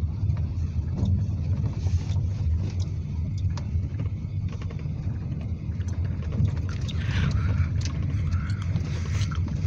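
Car cabin road noise from driving on a gravel road: a steady low rumble with scattered small ticks.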